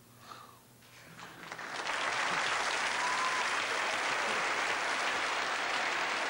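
Studio audience applause. It starts about a second in, swells to full within another second, then holds steady.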